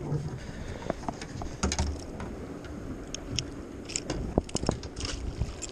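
Scattered light clicks and a few dull knocks of fishing tackle being handled on a fibreglass boat, with a low steady background hiss.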